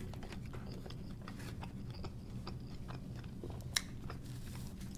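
Close-miked chewing of a mouthful of breaded chicken burger: soft, moist mouth clicks over a faint low hum, with one sharper click a little before the end.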